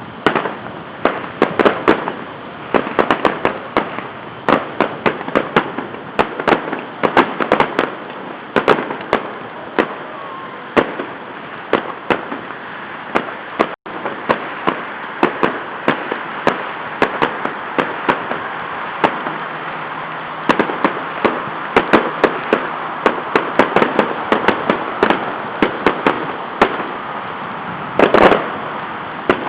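Fireworks and firecrackers going off in rapid, irregular succession: many sharp bangs and pops over a steady background hiss.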